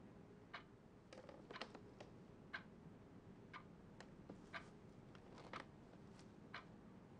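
A clock ticking faintly and evenly, about once a second, in a quiet room, with a few lighter clicks between the ticks.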